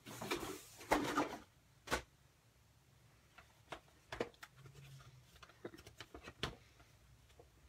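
Handling noises: a short rustle, then scattered light clicks and knocks of objects being moved or set down.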